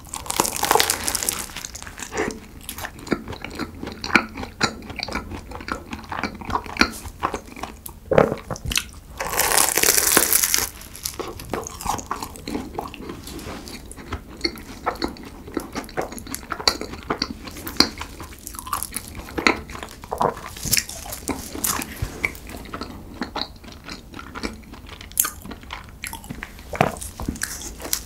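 Close-miked biting and chewing of a flaky croissant: crisp, crackly crunching of the pastry layers with wet chewing between bites. There is a louder, longer crunch just after the start and another lasting over a second about nine seconds in.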